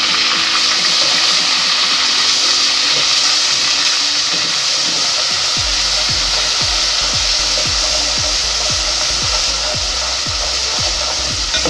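Ginger-garlic paste and onions sizzling in hot oil in an aluminium pot, stirred with a wooden spoon: a steady frying hiss. About halfway through, a low regular thumping of about three beats a second starts underneath.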